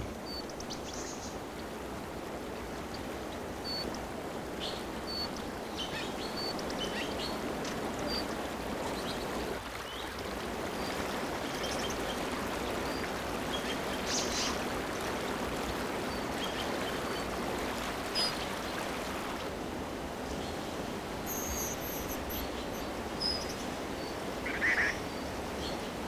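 Mountain stream rushing steadily over boulders, with short, high bird chirps now and then.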